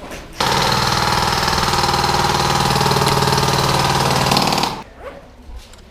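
Airsoft electric gun firing one long full-auto burst, a fast steady rattle of about four seconds that starts about half a second in and cuts off abruptly.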